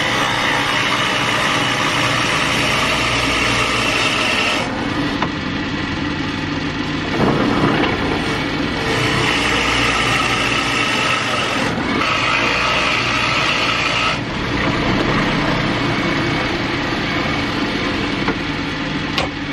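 Drill press motor running steadily while a Forstner bit bores into a wooden mallet-head block. A rough, scraping cutting noise fades and comes back several times as the bit is eased up and fed down again to clear the shavings.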